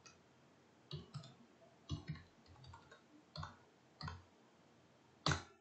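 Computer keyboard keys and mouse clicking: about eight short, separate clicks, the loudest near the end, as a CSS value is typed in.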